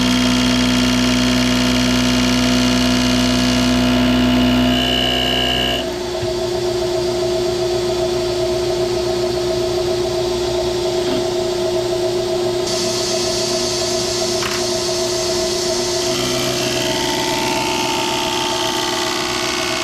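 Machine tool running steadily, motor and spindle making several held tones; the sound changes abruptly about six seconds in, and near the end some tones glide up and down.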